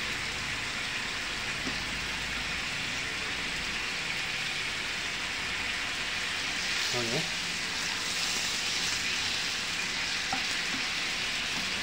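Chopped garlic and ginger with lemon slices sizzling steadily in oil and water in a nonstick frying pan, a wooden spatula stirring through the mixture.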